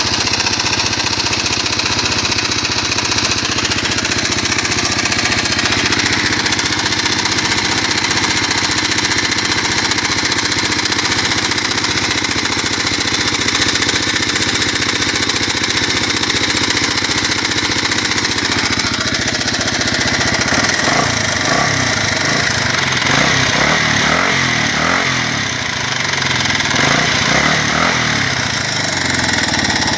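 1986 Kawasaki KLR250 single-cylinder four-stroke engine running with a knock or tick. The owner thinks the compression release, valve clearance or worn cams are possible causes, and doubts it is the piston or crank. The sound turns rougher and less even about twenty seconds in.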